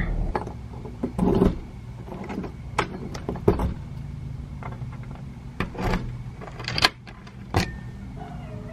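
Footsteps and the clicks and knocks of handling at a front door, over a low steady hum.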